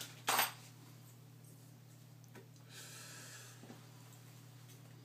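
Handling noise of hinge hardware being picked up and set in place: a short rustle near the start, a light click and a soft scrape later, over a steady low hum.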